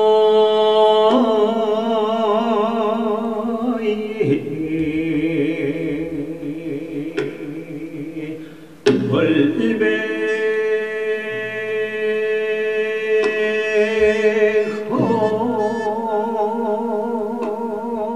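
Traditional Korean sijo song (sijo-chang): a male voice sings very slow, drawn-out notes with a wide, wavering vibrato, over traditional instruments the teacher takes for a bamboo flute and a stringed instrument. A new, louder note begins abruptly about nine seconds in.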